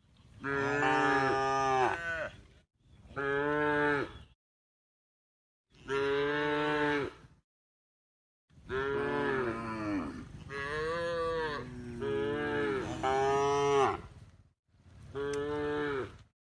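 Cow mooing over and over: about eight long, drawn-out moos, each one to two seconds, some running into one another in the middle and others separated by abrupt dead silence.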